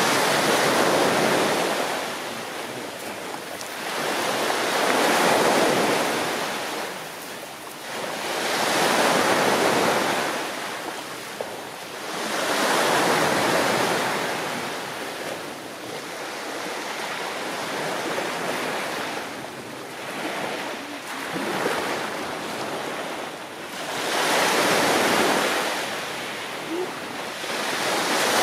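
Small sea waves breaking on a pebble beach, the surf swelling and dying away about every four seconds.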